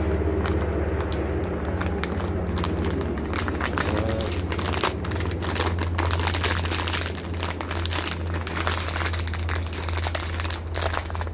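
Plastic food pouch crinkling and crackling as it is torn open with the teeth and then handled, over a steady low hum.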